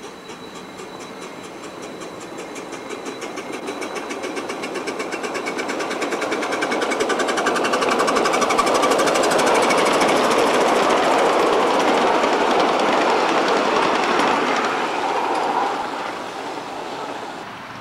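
Ride-on scale live-steam locomotive passing with a fast, even beat from its exhaust and running gear. It grows louder as it approaches, is loudest as it goes by, and fades off a couple of seconds before the end.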